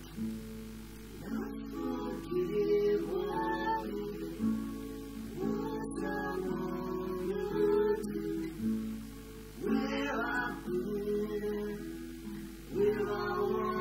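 Acoustic guitar strummed together with a Roland digital piano playing chords, with a voice singing a melody over them.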